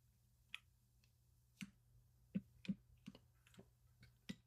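Faint, irregular light clicks and taps of Womier RD75 mechanical keyboard parts being handled and set back into the case during reassembly.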